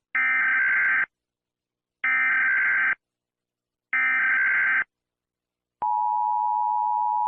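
Emergency Alert System alarm: three identical one-second bursts of buzzy data tones (the SAME header) a second apart, then a steady attention tone beginning about six seconds in.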